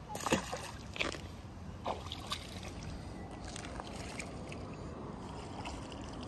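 Canal water splashing and sloshing a few times in the first couple of seconds as a pike is lowered in by hand and released, then a steady faint background hiss.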